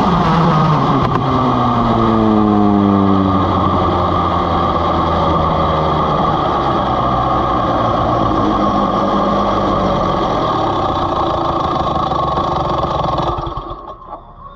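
Vortex ROK GP 125cc two-stroke kart engine winding down from speed, its pitch falling over the first few seconds, then running at low revs. It cuts off abruptly near the end as the engine is shut down.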